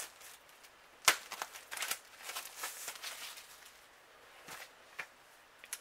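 A sharp tap about a second in, then a couple of seconds of crinkly rustling and a few fainter clicks: a CD album and its paper and plastic packaging being handled.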